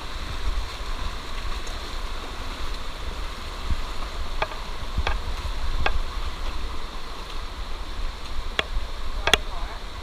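Steady rush of a shallow rocky stream cascading over stones, with a low rumble underneath and several sharp clicks in the second half, the loudest near the end.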